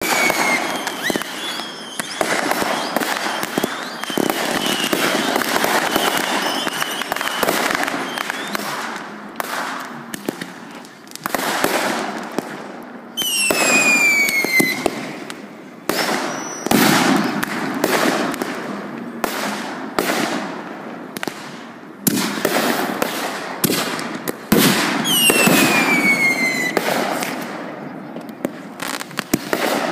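Consumer aerial fireworks going off in quick succession: dense crackling and popping bursts, with whistling effects that shriek and fall in pitch over a second or two, about 13 and 25 seconds in.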